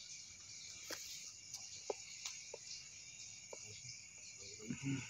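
Crickets chirring in a steady high-pitched night chorus, with a few faint short clicks and a brief louder low sound near the end.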